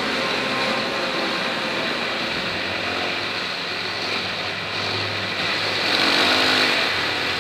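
Off-road dirt bike engine running steadily while riding a rough dirt track, mixed with a constant rushing noise.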